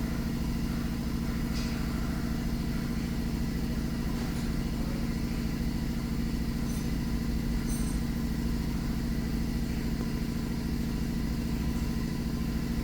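A steady low mechanical hum with a fine even pulse, like an engine or motor running at idle, with a few faint high ticks.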